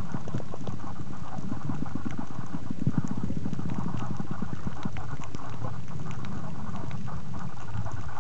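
Underwater noise heard through a compact camera sealed in a soft plastic waterproof case: a dense, irregular low crackling with a steady muffled hiss.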